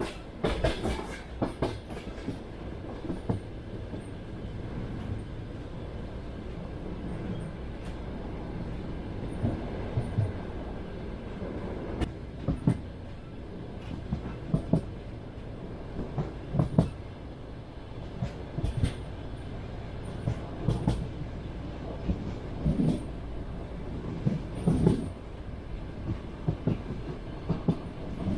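Train wheels clattering over rail joints over the steady rumble of the moving carriage. The knocks come in quick clusters, about one every two seconds through the second half.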